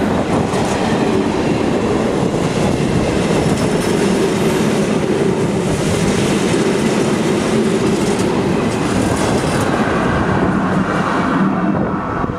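Freight train of heavy wagons rolling past at close range, the wheels clattering on the rails over a steady low hum of a diesel locomotive's engine. The noise eases slightly near the end as the last vehicle goes by.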